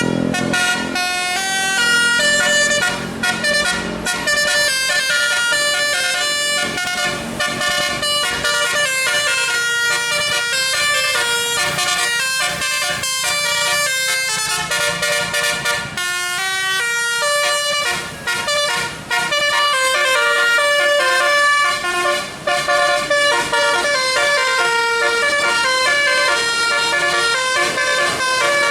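A bus's musical 'telolet' air horn playing a long, fast melody of quickly changing notes, several tones sounding at once.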